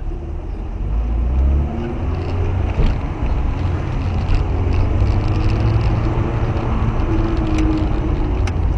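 Car engine and road rumble inside the cabin while driving, the engine note climbing as the car speeds up.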